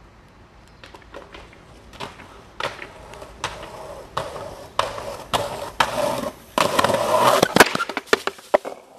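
Skateboard on concrete stairs: a regular series of wheel knocks about every half second that grow steadily louder, then a longer loud scrape about six and a half seconds in, followed by a quick clatter of knocks.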